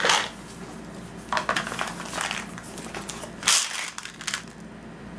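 Cardboard gift box and the products inside it being handled and taken out: a run of short rustles, scrapes and crinkles, the loudest about three and a half seconds in.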